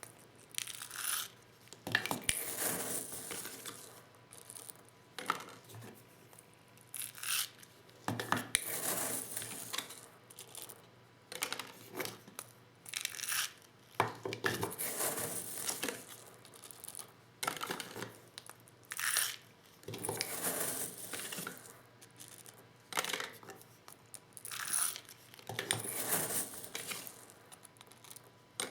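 Hand reloading of 12-gauge shotgun shells with a Lee Loader kit: short rattling and scraping handling sounds, with sharp clicks, every one to three seconds.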